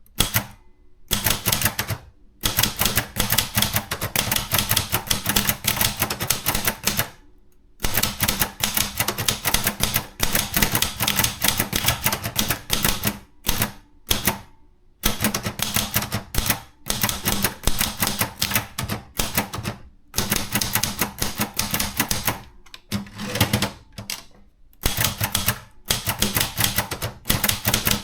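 Contessa 2 de luxe portable typewriter typed on at a quick pace: runs of rapid keystrokes broken by short pauses.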